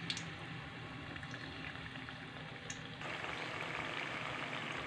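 Battered banana pieces deep-frying in hot oil in a wok, a steady crackling sizzle with a couple of faint clicks. The sizzle gets louder about three seconds in, once the wok is full of frying pieces.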